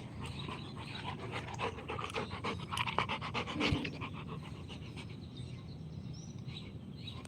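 Dog panting in quick, even breaths, loudest a couple of seconds in.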